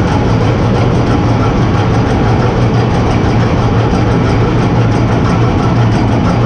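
Ship's engine-room machinery running at sea, a loud, unbroken drone with a strong low hum under a wide mechanical noise.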